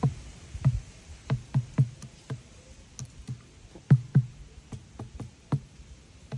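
A series of irregular soft knocks, two or three a second with short gaps, one of the loudest about four seconds in.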